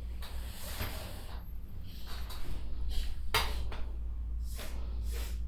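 A woman sniffing hard through her nose: one long breath in, then several shorter sharp sniffs, the loudest a little past the middle. She is drawing something minty up her nose to bring on a sneeze.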